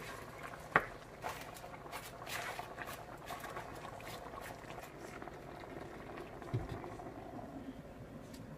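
Chicken wings in coconut milk (ginataan) bubbling in a pot at a low simmer, with a sharp click about a second in and a low knock later on.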